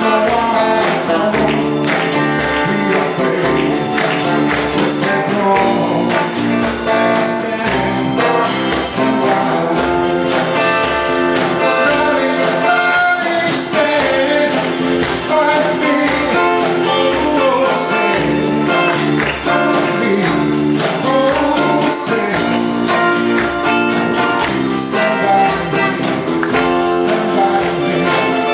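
Live band playing a song with a singer, guitar and bass over a steady drum beat.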